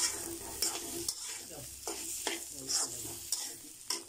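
Metal spatula scraping and stirring sliced bitter gourd in a metal karahi, with a short scrape about every half second over a faint sizzle of frying. The bitter gourd fry is nearly done.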